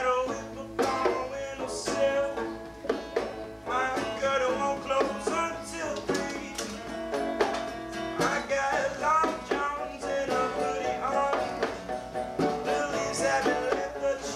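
Live acoustic string band playing an up-tempo tune: strummed acoustic guitar with a banjo picking rapid notes over it.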